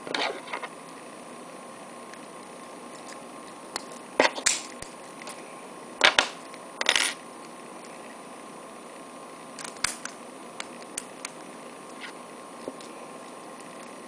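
Sharp metallic clicks and clacks of a Master No. 3 laminated-steel padlock and lock picks being handled and knocked against a wooden table. There is a short cluster at the start, the loudest clacks come about four seconds in and again six to seven seconds in, and lighter ticks follow, all over a steady background hiss.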